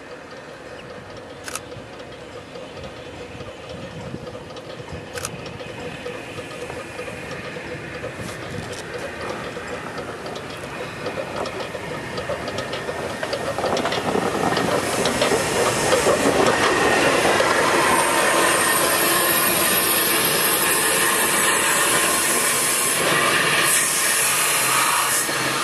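Welsh Highland Railway NGG16 Garratt steam locomotive No. 143 running into the station, growing steadily louder as it approaches and passes. From about fifteen seconds in there is a loud steam hiss, and the carriages roll past.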